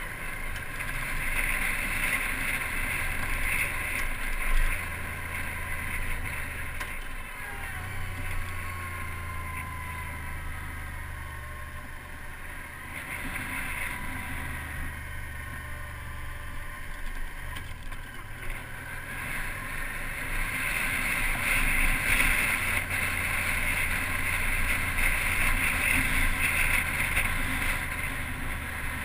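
Touring motorcycle riding along a road: wind rushing over the fairing and microphone, with the engine's low drone underneath. The drone drops away briefly a few times. The wind rush is loudest near the start and again in the last third.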